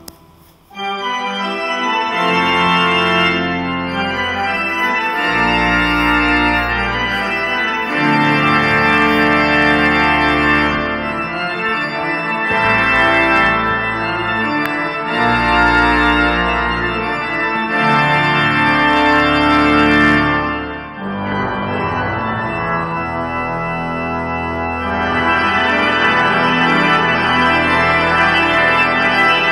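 Church pipe organ playing loud sustained chords over deep pedal notes that change every two to three seconds. It comes in about a second in, and the sound briefly drops and thins out about 21 seconds in before filling out again.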